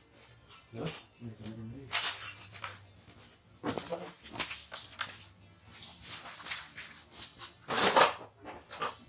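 Background music over irregular clicks and clatter of tools and parts as a motor scooter is taken apart, with louder knocks about 2 seconds in and near the end.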